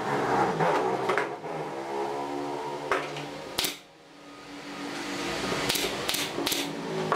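Pneumatic brad nailer firing: a single sharp shot a little after halfway, then three shots in quick succession near the end as brads are driven through the top rail into the leg.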